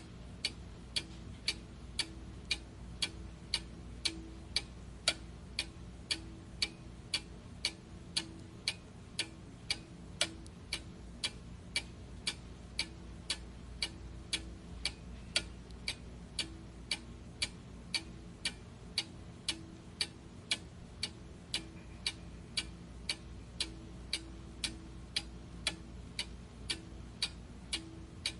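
Steady, even ticking, about two ticks a second, over a low hum.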